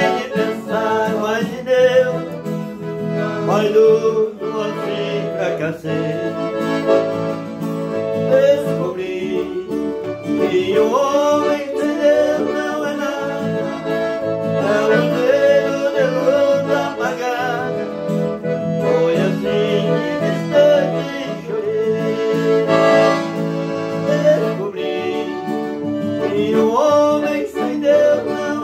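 Piano accordion and acoustic guitar playing a hymn while two men sing in Portuguese.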